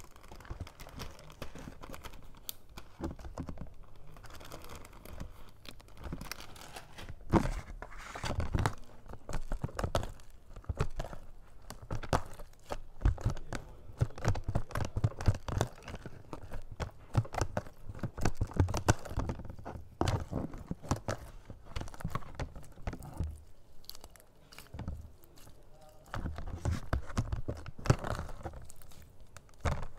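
Clear slime full of small foam beads being squeezed and kneaded by hand, giving a dense, irregular run of crackles and crunches. It grows louder about seven seconds in and dips briefly near the end.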